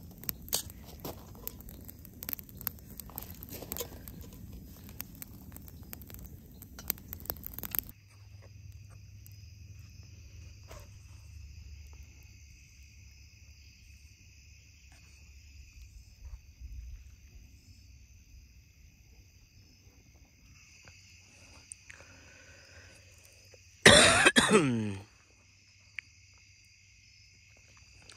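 Footsteps crunching on a shell-and-gravel beach with many sharp clicks for the first several seconds. Then a steady, high trilling of insects, likely crickets, with one loud cough about a second long near the end.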